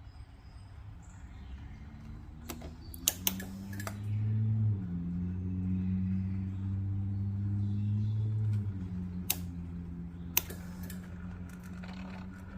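A handful of sharp clicks over a steady low electrical hum that swells about a third of the way in and eases off past the middle, as the BMW F650 GS Dakar is tried and fails to crank.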